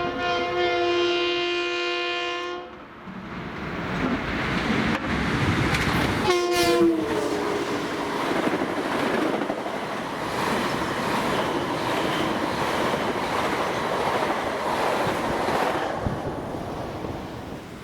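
Long Island Rail Road train sounding its horn: a sustained chord that cuts off under 3 seconds in, then a second short blast about six seconds in whose pitch drops as the train passes. The train then rushes past, with steady wheel-and-rail noise that fades near the end.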